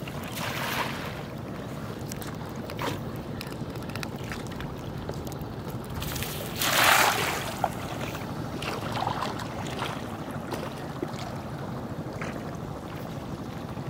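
Water splashing as a cast net is thrown into shallow river water, with a small splash about a second in and the loudest splash about seven seconds in. Wind rumbles steadily on the microphone underneath.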